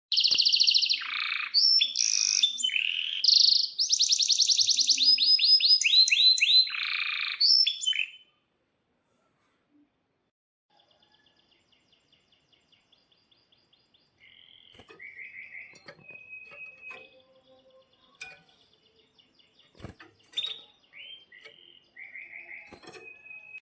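A male domestic canary singing: loud rolling trills and rapid repeated chirps for about the first eight seconds. After a short pause come softer chirps and short trills, with a few sharp clicks.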